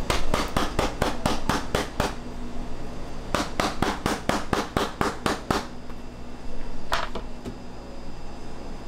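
Metal baking sheet of piped macaron shells rapped repeatedly on a counter in two quick runs of knocks, about five a second, then one more single knock. It is the step that knocks air bubbles out of the shells before they rest and bake.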